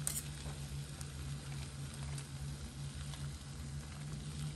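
A pot of green beans boiling on the cooktop: a faint bubbling hiss over a low, pulsing hum, with a few light clicks.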